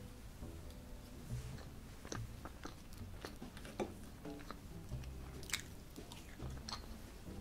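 Eating sounds: a metal fork cutting into soft sponge cake and clicking sharply against a ceramic plate, with soft chewing between the clicks.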